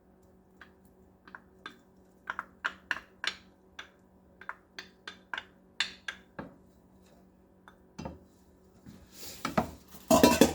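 Spoon clinking and tapping against kitchenware as mustard is measured out, a run of short sharp clicks several a second. Near the end comes a louder clatter of dishes.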